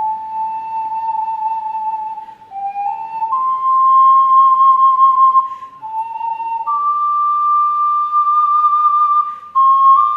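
Alto C ocarina playing a slow melody of long, pure held notes with a gentle vibrato, stepping up to its highest sustained note in the second half and changing notes quickly near the end. Recorded through a phone's built-in microphone.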